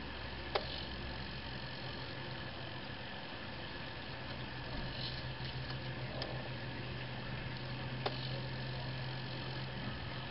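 Low steady motor hum from a homemade tracked robot's arm drive as it lowers a weighted box under load. The hum grows about four seconds in and stops at the end, with a few light clicks along the way.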